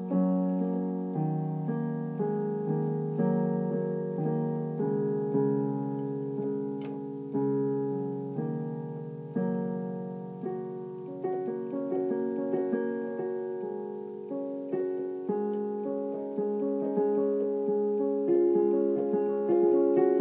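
Digital piano played by hand in a slow improvisation: a chord struck about once a second and left to ring and fade.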